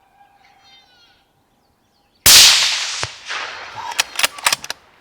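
A single gunshot about two seconds in, loud, with a trailing echo, followed by a run of sharp clicks and knocks. Before it, a faint bleating call from a fawn-distress predator call.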